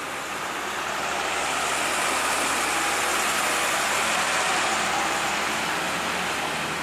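Diesel truck passing close by on a wet road: engine running under a hiss of tyres on the wet surface, swelling as it comes past and easing off near the end.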